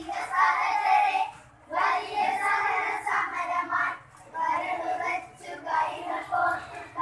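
A group of children singing together in short phrases of a second or two, with brief pauses between phrases.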